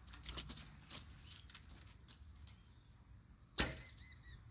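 A 55 lb horse bow being shot: one sharp snap of the string as the arrow is released, about three and a half seconds in, after faint handling clicks.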